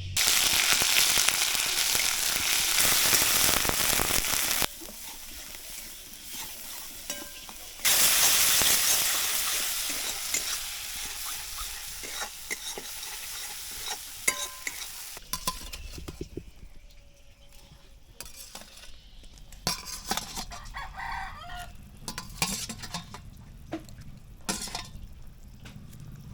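Food sizzling loudly in hot oil in a pan. It starts suddenly twice and then fades to quieter frying, with a utensil knocking and scraping in the pan.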